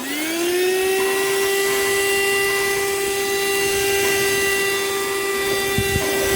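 A small cordless handheld vacuum is switched on. Its motor spins up to a steady high whine with rushing air as it sucks up oatmeal from a countertop. There are a couple of brief low knocks near the end.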